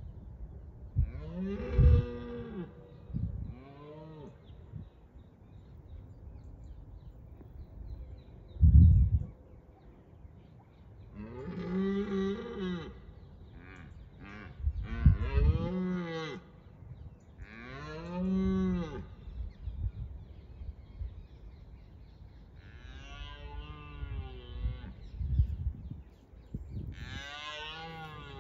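Red deer stags roaring in the rut, a stag's first line of defence of his harem: about seven drawn-out roars, some fainter than others. Wind rumbles low on the microphone, with a short low thump about nine seconds in.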